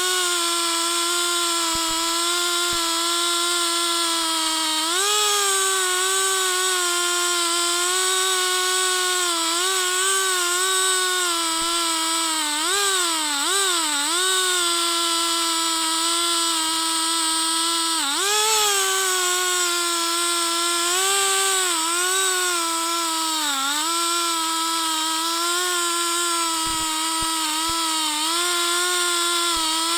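A gas chainsaw's two-stroke engine runs at full throttle in an Alaskan-style chainsaw mill, ripping lengthwise through a log. Its steady high pitch sags and recovers several times as the load on the chain changes.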